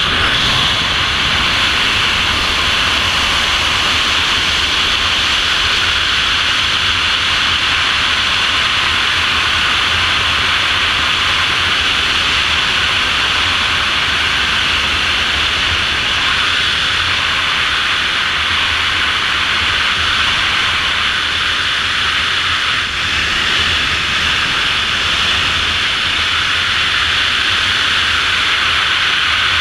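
Loud, steady rush of wind buffeting a GoPro camera's microphone during high-speed wingsuit flight, with a deep rumble beneath it.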